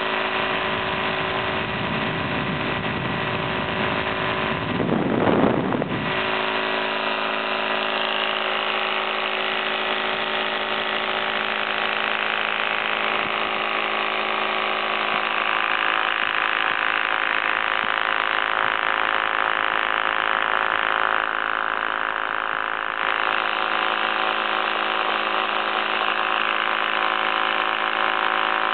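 Oil-less Craftsman air compressor pump with its brushed electric motor running steadily, off its tank so it pumps into open air, a dense buzzing whine with a brief louder burst of noise about five seconds in.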